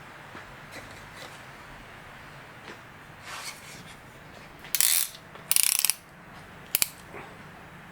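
A hand ratchet wrench clicking in two short quick runs just before the six-second mark, then a sharp double click, with lighter taps of tools against metal around it.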